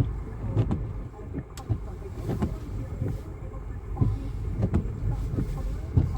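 A car moving through snow: a steady low vehicle rumble with irregular dull thumps about once a second.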